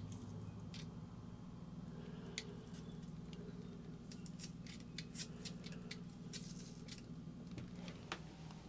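Plastic trigger spray bottle spritzing soapy water onto gas pipe fittings to check for leaks: short hissing squirts, a few spaced ones, then a quicker run of them from about four seconds in. A faint steady low hum lies underneath.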